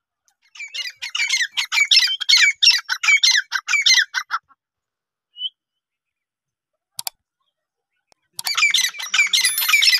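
Grey francolin calling: a fast run of repeated high-pitched notes lasting about four seconds, then a pause broken by a single short chirp and a click, and a second run of notes starting near the end.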